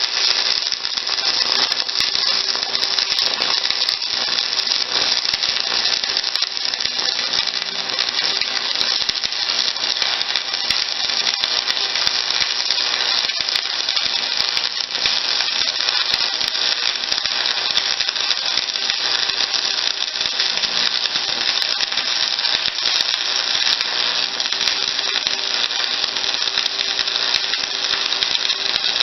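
Electric arc welder crackling steadily as a continuous weld is run on steel.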